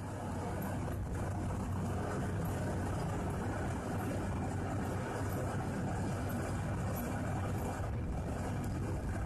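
Truck-mounted mud rotary water-well drill rig running steadily: a low, even engine note under a rough mechanical rumble.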